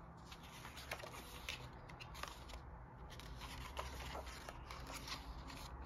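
Pages of a small paperback coloring book being turned by hand: faint paper rustling with a few light flicks.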